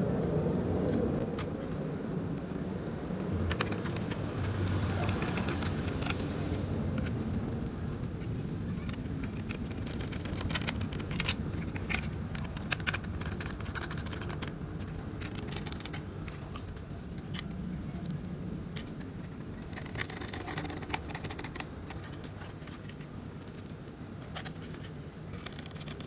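Small screws and a screwdriver clicking and scraping as screws are fitted into a laptop drive bracket: scattered light ticks over a steady low background hum.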